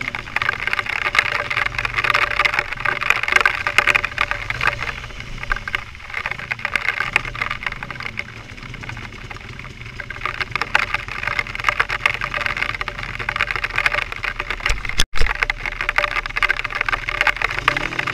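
A vehicle being driven over a rough track: steady engine and road noise mixed with many small crackles and knocks. The sound drops out for an instant about 15 seconds in.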